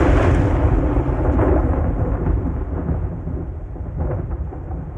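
Logo-reveal sound effect: a deep, noisy rumble with a hiss over it, like rolling thunder, loud at first and slowly fading.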